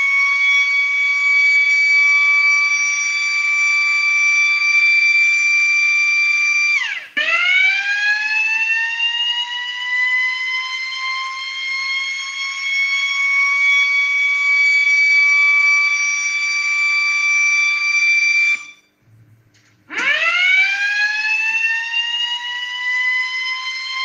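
Small motor-driven metal rotor siren wailing with a loud, high steady tone. About seven seconds in its pitch drops sharply and then winds back up over several seconds. Near the end it cuts off for about a second and then spins up again from a low pitch.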